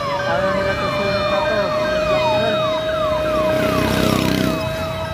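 Emergency vehicle siren sounding in quick falling sweeps, about two a second, over a steady held tone. A rushing noise swells briefly around four seconds in.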